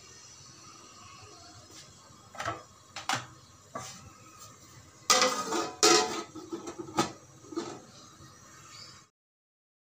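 A metal lid clanking against a large aluminium cooking pot. A few light clinks come first, then a louder cluster of metal knocks as the lid is set in place. The sound cuts off abruptly near the end.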